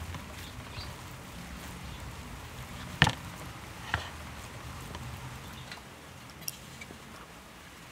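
Hands kneading and squeezing a moist grated-vegetable kofta mixture in a ceramic bowl, with two sharp knocks about three and four seconds in, the first the louder.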